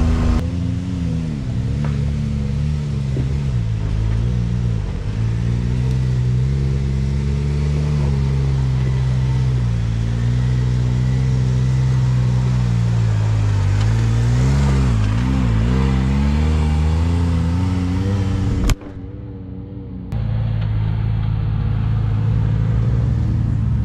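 Can-Am side-by-side's turbocharged three-cylinder engine running at low revs as it crawls up a rocky trail, its pitch rising and falling with the throttle. The sound drops away for about a second near the end, then the engine carries on.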